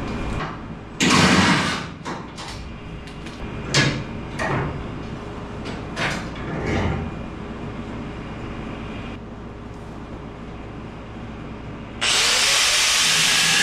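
Metal parts and tools knocking and clanking a few times as the bumper brackets are handled, then about twelve seconds in a handheld angle grinder starts suddenly and runs loud and steady, grinding on a metal bumper bracket.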